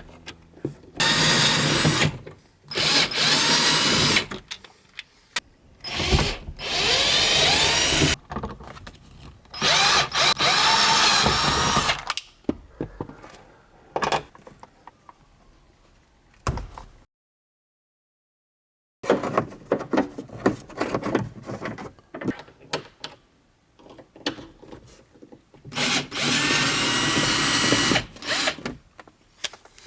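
Cordless power drill/driver running in about five bursts of one to two seconds each, backing out screws from the interior trim, with small clicks and handling noise between bursts. The sound drops to dead silence for about two seconds just past halfway.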